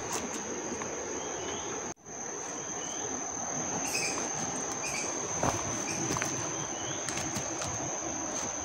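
Steady high-pitched insect trill of forest crickets or cicadas, with scattered faint clicks like footsteps on the trail and a few short faint chirps. All sound cuts out for a moment about two seconds in.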